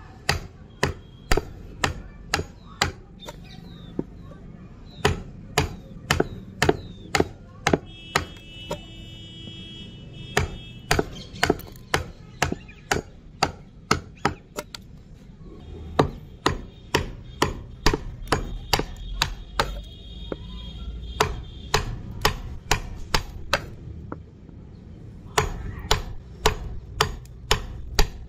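Wood chisel being struck over and over, each blow a sharp knock as the blade is driven into the wood to pare away waste along a marked curve. The knocks come at about one to two a second, with a couple of short pauses.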